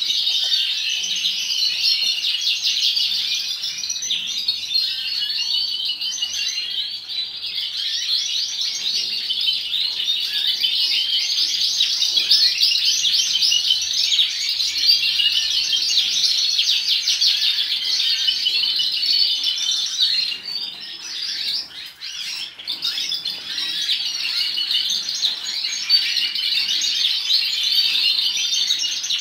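A large flock of caged canaries chirping and twittering together in a dense, continuous chorus, dipping briefly about two-thirds of the way through.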